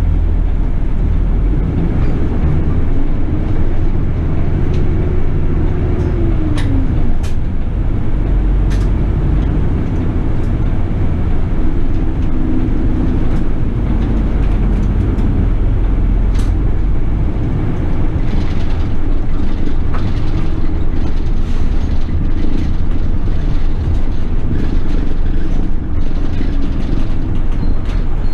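City bus under way: steady engine and road rumble, with the engine note rising and then dropping a few seconds in as the bus pulls away and changes gear, then rising and falling again. A few sharp clicks sound over it.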